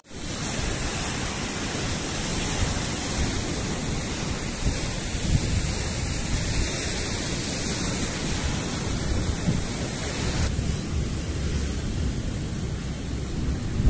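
Ocean surf breaking on a rocky shore: a steady rush of waves, with wind buffeting the microphone.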